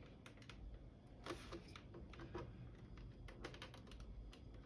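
Faint, irregular plastic clicks and creaks from a monitor bezel being pried at, its clips holding tight and not letting go.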